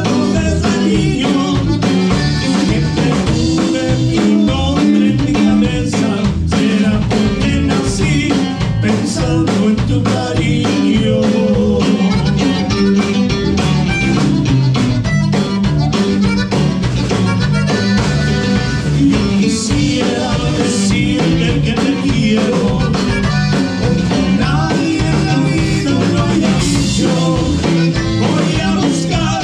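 A band playing a song with drum kit and guitar, at a steady beat.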